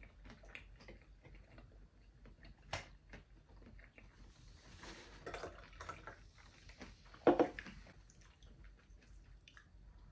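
Quiet chewing and small clicks of chopsticks while eating sushi, then cola poured fizzing from a can into a glass from about four seconds in, loudest briefly about seven seconds in.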